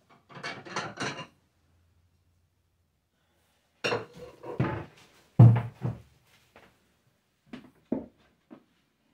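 Dishes and tableware being handled and set down: a quick run of clinks and rattles, then a cluster of knocks with one heavier thump about five and a half seconds in, and a few light taps near the end.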